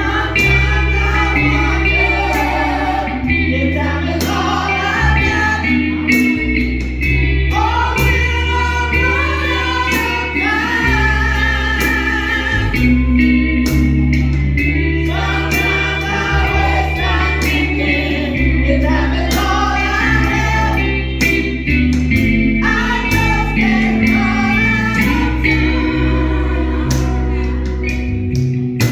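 Gospel-style church music: singing voices over a band with bass, guitar and a steady beat.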